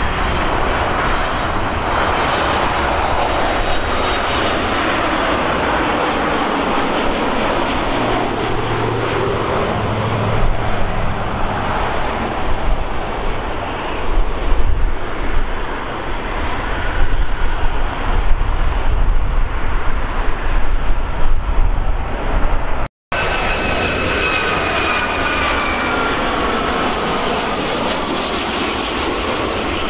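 Jet airliner engines beside the runway: a continuous loud rush of jet noise that deepens into a rumble with loud surges about halfway through. It breaks off suddenly, then resumes with a falling engine whine as a jet passes.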